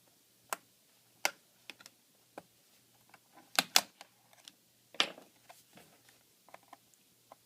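Sharp plastic clicks and snaps from a laptop keyboard being pried up out of its retaining clips with a pointed tool. The clicks come at uneven intervals, with the loudest pair about three and a half seconds in.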